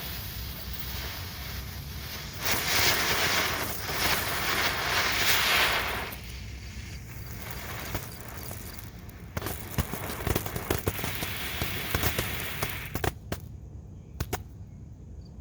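Fire-truck novelty ground firework going off: a loud hiss of spraying sparks for about three and a half seconds, then several seconds of scattered crackling pops.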